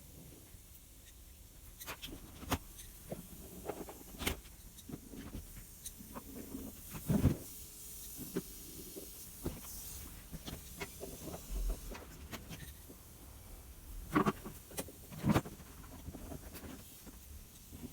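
Irregular clicks and knocks from handling a washing machine's plastic parts during cleaning, the loudest about seven seconds in and two more near the end.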